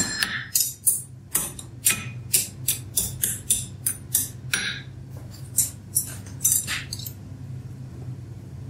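Hand-hammer blows on red-hot iron over a steel anvil, about three ringing strikes a second, making a set down and cutting a pendant taper off the bar. The hammering stops about seven seconds in.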